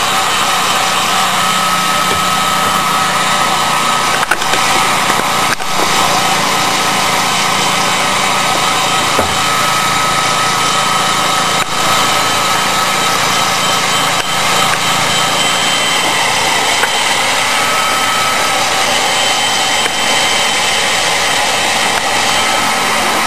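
Electric heat gun running steadily: an even rush of blown air with a steady whine from its fan motor, held on a strip of PVC pipe to soften the plastic for bending.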